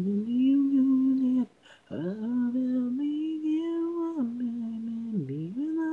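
Isolated a cappella vocal track of a rock song, with no instruments: a single voice sings long held notes. There is a short break about a second and a half in, and near the end the pitch drops and swoops back up.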